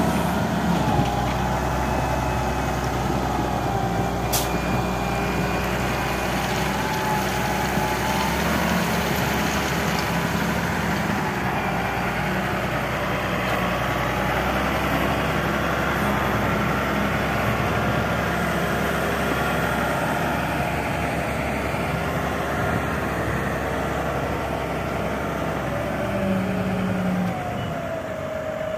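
Hindustan wheel loader's diesel engine working under load as it scoops from a pile and lifts its bucket, its pitch shifting up and down with the throttle. A sharp click about four seconds in.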